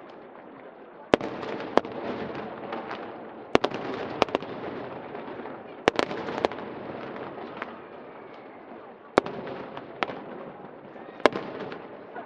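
Aerial fireworks display: a sharp bang every one to two seconds, about eight in all, over a steady crackling din.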